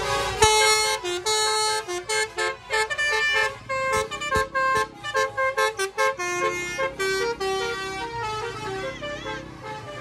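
A bus's telolet basuri horn, a multi-tone musical horn, playing a quick melody of short, choppy notes. The notes grow sparser and softer over the last few seconds.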